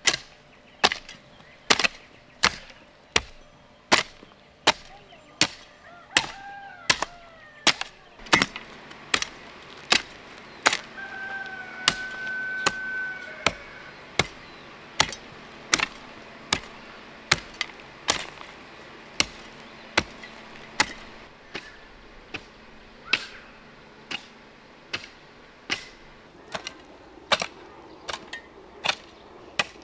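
Steady, evenly paced chopping: sharp strikes of a hand tool into wood, about one and a half a second. A rooster crows once, about eleven seconds in.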